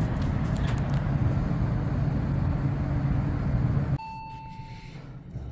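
Steady outdoor rumble of city traffic. About four seconds in, it cuts to a quiet indoor space where an elevator chime sounds once, a single held ding of about a second.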